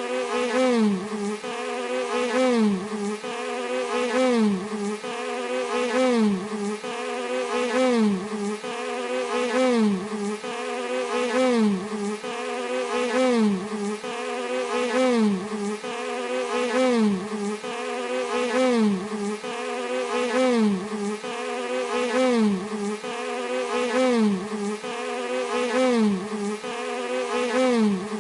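Bee buzzing steadily. The pitch dips and swells again in a regular repeating cycle, with a louder peak about every two seconds.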